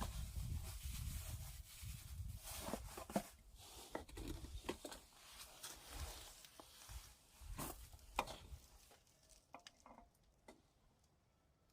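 Faint scattered clicks and light knocks over a low rumble that fades out during the first few seconds, ending near silence.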